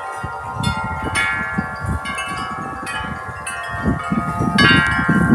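Several tuned metal wind chimes ringing in a strong gust of wind, their tubes struck over and over so that the notes overlap. The strikes come faster and louder near the end, over a low rumble of wind.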